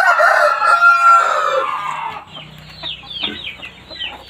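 A rooster crowing, one long call that holds a steady pitch and trails off about two seconds in, followed by chickens clucking and chirping.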